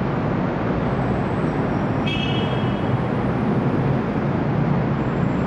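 Steady city road traffic noise, with a brief high squeal about two seconds in.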